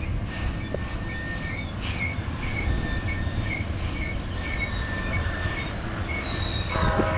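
Train rolling past with a steady low rumble and a run of short, high wheel squeals about twice a second. Near the end a locomotive air horn starts sounding a chord.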